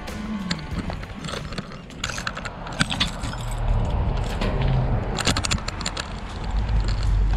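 A bunch of keys jangling and clicking in a hand, in clusters of short metallic clicks, over a low rumble.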